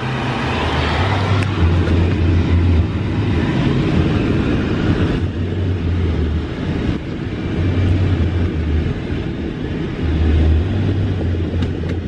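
Wind rushing into a moving car through an open window, with heavy low buffeting on the microphone that swells and eases in uneven gusts, over road noise.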